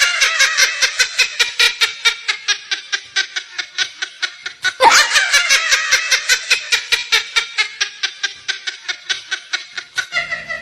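A person laughing hard in two long bouts of fast, repeated 'ha-ha' pulses, about seven a second. Each bout starts with a loud high cry, at the start and again about five seconds in, then gradually fades.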